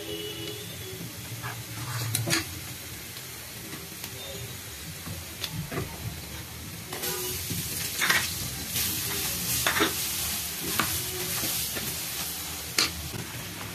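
Sliced onions and spices sizzling in hot oil in a black wok, stirred with a steel spoon that scrapes and clinks against the pan now and then. The sizzling gets louder about halfway through.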